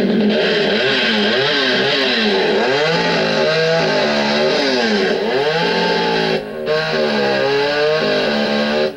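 Gas chainsaw cutting through a downed log, its engine pitch swinging up and down again and again as the chain bites into the wood. The sound dips briefly about six and a half seconds in, and it stops near the end.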